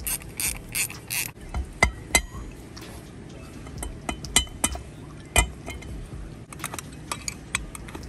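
Hand ratchet clicking in a quick run of short strokes while tightening the bolts that mate a Garrett turbo's turbine housing to its center section. This is followed by scattered sharp metal clinks and knocks of tools and housing parts, the loudest about two seconds in and just past five seconds, then more quick clicks near the end.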